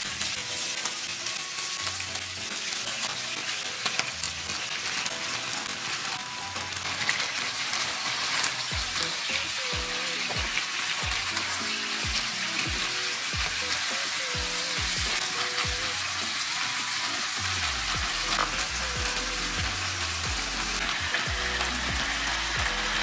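Chicken breast pieces sizzling steadily as they fry in hot oil in a nonstick frying pan.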